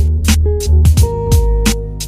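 Background music with a steady beat: deep kick drums that drop in pitch, sharp percussive hits about three times a second, and held notes.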